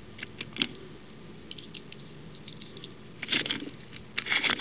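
Small metal hand tools being handled: scattered light clicks and taps, with a short clatter about three seconds in and another near the end.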